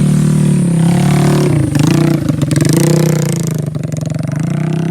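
Motorcycle engine running close by, its pitch wavering and dipping about halfway through before settling steady again.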